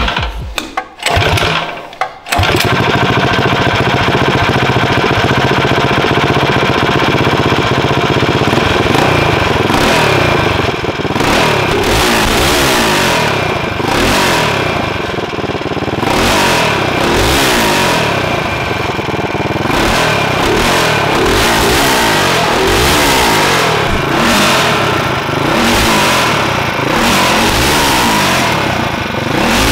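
Hopped-up Harbor Freight Predator Ghost 212cc single-cylinder engine, built with a stage 5 head, .308 cam and 28 mm Mikuni carb and running on 110 race gas. It fires in a few short bursts in the first two seconds, then runs on its own. From about ten seconds in it is revved up and down again and again.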